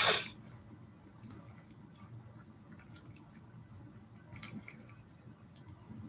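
A short breathy exhale at the start, then quiet room tone with a few faint small clicks.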